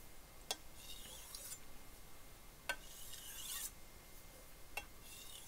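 Wusthof chef's knife drawn across a 5000-grit Kramer glass whetstone in three finishing strokes about two seconds apart. Each stroke is a sharp tick as the blade meets the stone, then a high scraping rasp lasting under a second.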